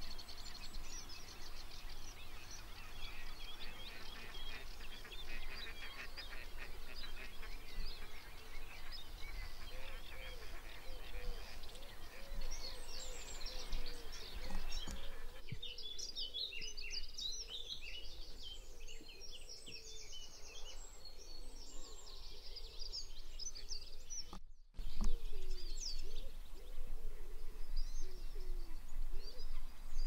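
Dawn chorus of many songbirds singing and chirping over one another, with lower wavering calls underneath. The sound cuts out briefly about 25 seconds in, and a low rumble is louder after it.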